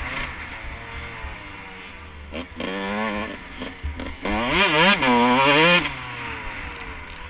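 A 2012 Husqvarna CR125 two-stroke motocross engine revs hard while being ridden, its pitch swinging rapidly up and down. It is loudest about four to six seconds in, then settles to a quieter, lower drone. Wind rumbles on the microphone throughout.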